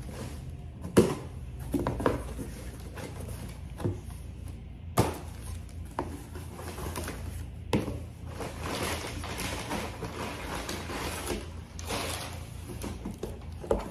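Cardboard shipping box being cut open with scissors and handled. A few sharp knocks and thuds come first, the loudest about a second in. Then comes a longer stretch of cardboard scraping and rustling as the flaps are pulled open.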